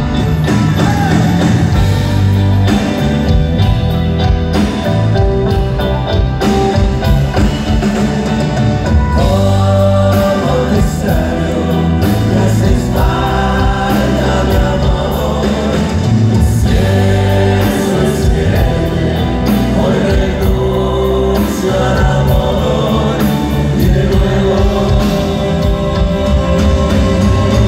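A grupera band playing live, with a singer's voice carried over the full band.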